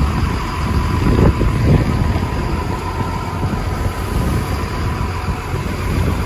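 Boat engine running steadily with a low rumble and a faint steady whine, under wind buffeting the microphone.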